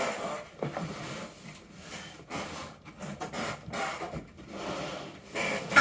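Cardboard box and packaging rustling and scraping as an RC truck is pulled out of its box, with scattered small knocks and one sharp knock at the very end.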